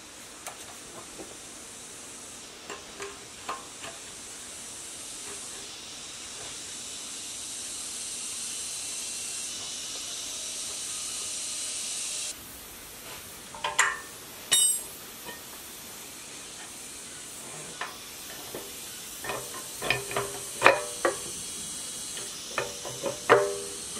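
Metal clicks and clinks of steel valve-gear parts, the pushrods and rocker arm of a ZS1115 single-cylinder diesel's cylinder head, being handled and fitted into place. A few short clinks with a brief ring come a little before halfway, then a quicker cluster near the end. Under them is a steady high hiss that stops abruptly about halfway.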